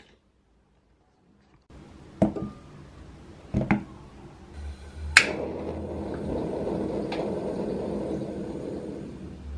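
Kitchen handling sounds: a few sharp clicks and knocks, the loudest about five seconds in, after which a steady rushing noise with a low hum sets in and keeps going.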